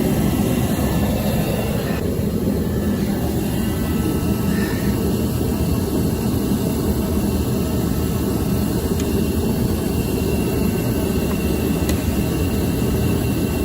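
Torpedo heater running steadily: a continuous blowing noise, heaviest in the low range.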